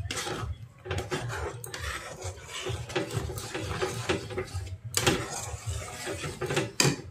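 Metal spatula scraping and clinking against a metal kadai in irregular strokes, stirring a thick spice paste (masala) as it fries.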